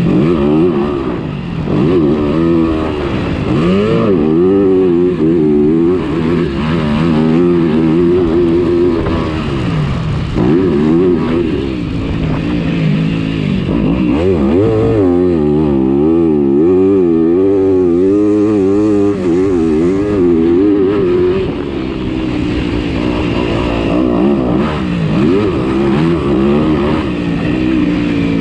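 Motocross bike engines racing: the pitch repeatedly rises and falls as the riders open and close the throttle and shift, with more than one bike heard at once.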